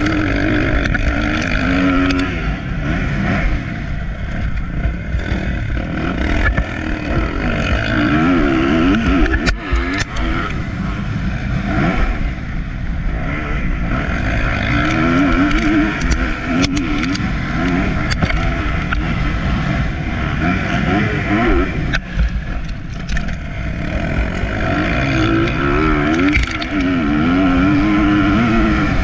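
Motocross dirt bike engine, heard up close from on the bike, revving hard with its pitch rising and falling again and again as the rider twists the throttle and shifts gears. A few sharp knocks cut through here and there.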